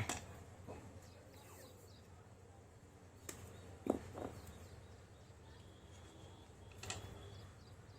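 Faint handling sounds: a few light clicks and taps, spread out, while insulating tape is wrapped over a soldered Li-ion battery terminal.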